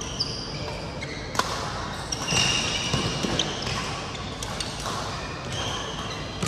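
Badminton hall sounds: scattered sharp hits of rackets on shuttlecocks and short high squeaks of shoes on the court floor, with faint voices in the background.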